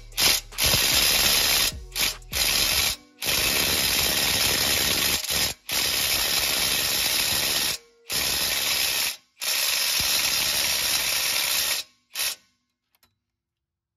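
Cordless impact gun hammering on a 21 mm brake bolt in repeated bursts of one to two seconds, stopping near the end; the bolt is not coming loose at all.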